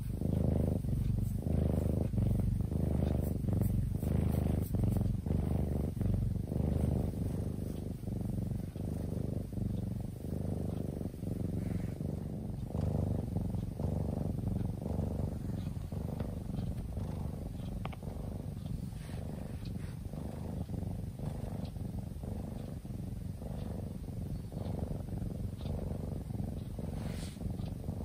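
Sleeping kitten purring while its head is stroked: a close, low purr in regular pulses, a little softer after the first several seconds.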